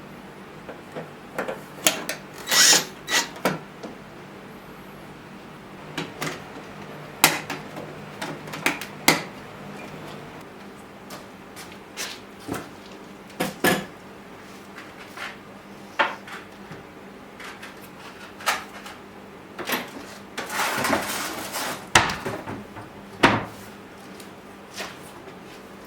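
Irregular clicks, knocks and clatter of tools and parts being handled on a hard surface, with a longer scraping rustle about 20 seconds in, over a faint steady hum.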